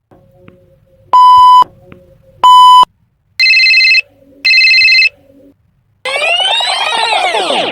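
Electronic sound effects in quick succession. Two short, loud bleeps like a censor beep come first, then two harsher, higher beeps, then a long whistle that slides down in pitch from about six seconds in.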